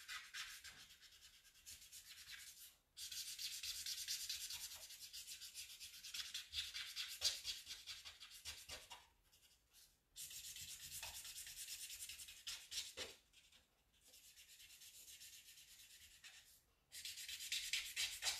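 Felt-tip marker rubbing on paper in quick back-and-forth strokes while colouring in. It comes in several stretches, with short breaks about three seconds in, around nine to ten seconds and around thirteen seconds.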